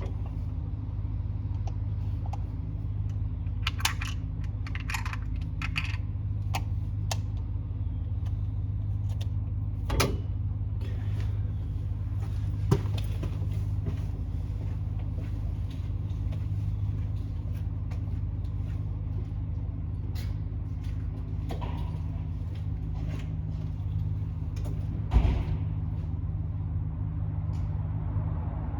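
A steady low mechanical hum with scattered light clicks and a few sharp knocks, the loudest about ten, thirteen and twenty-five seconds in.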